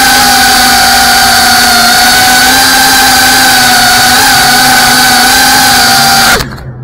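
GEPRC Cinelog35 cinewhoop's brushless motors and ducted propellers whining steadily at speed, pitch wavering slightly, then dropping away abruptly near the end.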